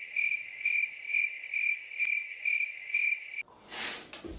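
Cricket chirping sound effect: a steady high trill pulsing about twice a second that cuts off suddenly near the end. It is the stock 'crickets' gag for an awkward silence.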